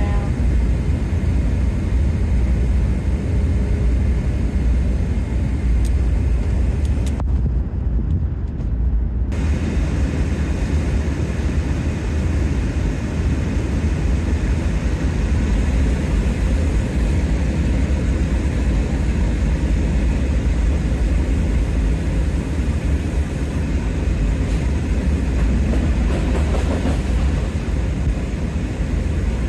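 Steady, loud rushing noise of airflow and engines inside a C-17 Globemaster III's cargo hold with the rear ramp open in flight, heaviest in the low rumble. About seven seconds in, the upper part of the noise drops out for roughly two seconds, leaving it muffled.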